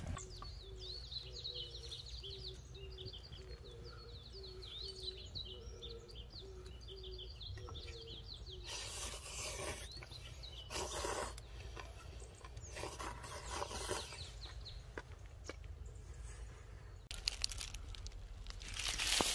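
Birds singing, with quick high chirps over a steady run of short low notes. From about halfway through, several bouts of crunching and rustling take over, the loudest near the end.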